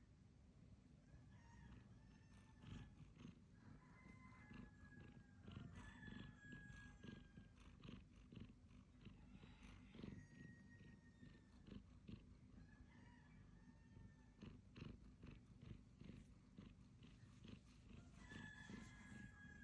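A cat purring quietly and steadily, contented at a favourite spot, with faint thin high tones now and then.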